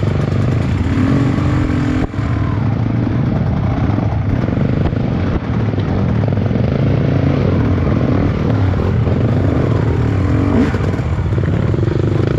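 Trail motorcycle engine running steadily, with its revs briefly rising and falling a few times.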